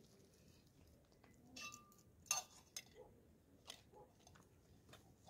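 Near silence with a few faint, sharp clicks scattered through the middle of it, the sharpest a little over two seconds in.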